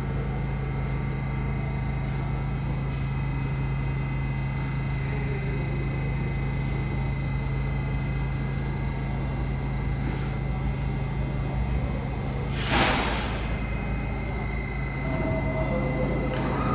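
New York City subway train with a steady low hum and a constant high whine, broken about twelve and a half seconds in by one short, loud hiss of air, typical of an air brake release. A few faint tones come in near the end.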